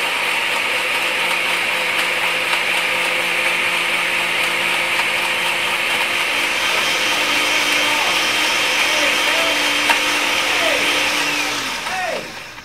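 Countertop blender running steadily as it blends a smoothie, then winding down and stopping near the end.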